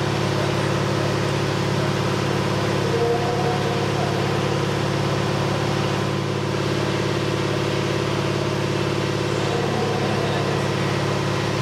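A steady mechanical drone made of several constant low tones, unchanging in pitch or level, like a machine or engine running at idle.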